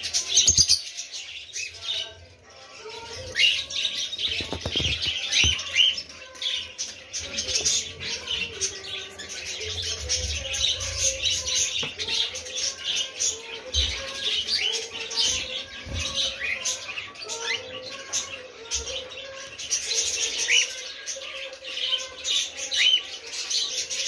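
Many caged pet birds, zebra finches and cockatiels among them, chirping constantly, with short upward-sweeping calls standing out. A few low thumps, the loudest about half a second in.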